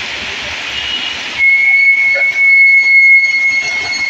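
A bus horn blowing one long, steady high note for about three seconds, starting about a second and a half in. Under it, a steady hiss of heavy rain.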